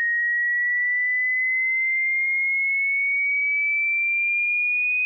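A single pure sine tone for a hearing test, high-pitched and steady in loudness, gliding slowly and evenly upward in pitch.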